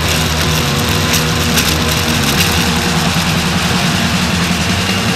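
Radio-controlled model speedboat's motor running steadily, heard from on board with water noise.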